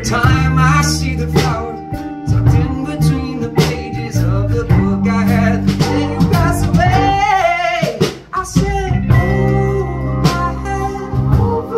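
A band playing a song live: a man singing over a picked mandolin and keyboard, with a held bass line and a drum beat.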